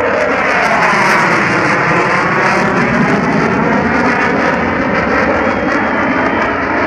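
F-16 fighter jet passing overhead, its engine making a loud, steady jet noise with a phasing sweep that dips and rises again about two to three seconds in.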